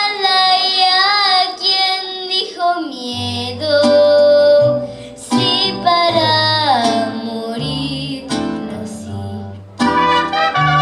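A girl singing with a live mariachi band: strummed guitars and plucked bass notes under her voice, and the band coming in louder near the end.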